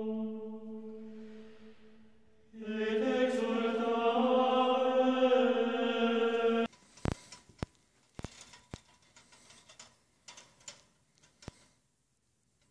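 A chanted vocal drone on one held note fades out. A second chanted note starts about two and a half seconds in, holds for about four seconds and cuts off abruptly. After it come a few sharp clicks and taps at irregular intervals.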